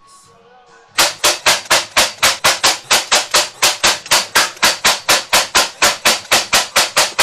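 Brad nailer firing over and over, about four sharp shots a second, driving brad nails into glued-on wooden corner pieces.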